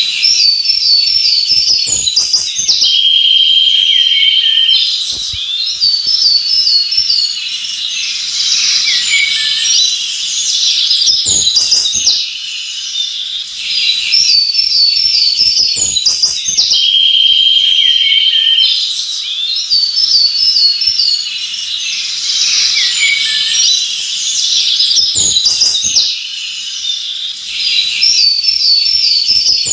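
Forest birdsong: several birds chirping and singing, with a wavy whistled phrase followed by a steady trill. The same stretch of song repeats about every 14 seconds, as a loop.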